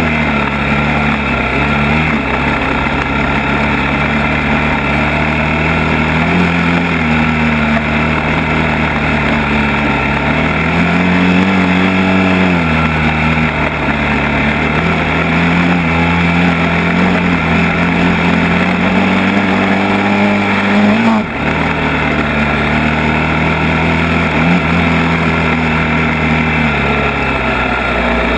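ATV engine running under throttle, its pitch rising and falling with speed, climbing to a higher rev about halfway through. It cuts out briefly about three quarters of the way in.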